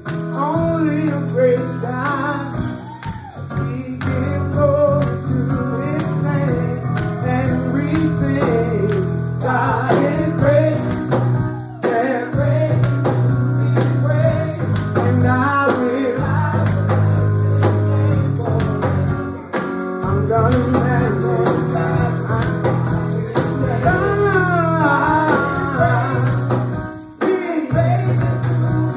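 Gospel worship music: voices singing over a band with sustained bass notes.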